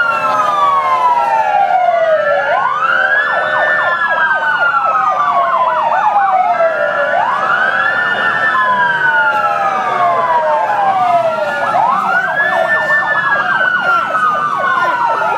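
Several police motorcycle sirens sounding together and overlapping: slow wails that rise quickly and fall slowly every four to five seconds, broken by stretches of fast yelp.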